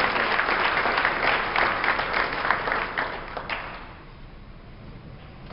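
Banquet audience applauding, the clapping dying away about three and a half seconds in, then quiet room murmur.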